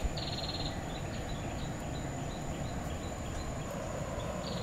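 Outdoor forest ambience: a steady high insect drone over a low even background hiss, with a short rapid trill just after the start and again at the end, and a few faint chirps in between.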